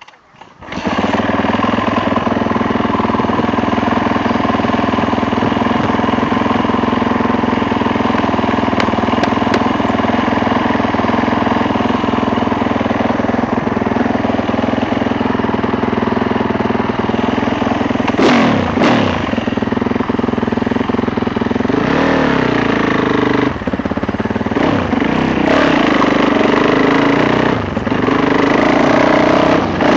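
Yamaha YZ450F single-cylinder four-stroke motocross engine catching about a second in, then idling steadily. A short rev up and back down comes a little past halfway, followed by several quick throttle blips near the end.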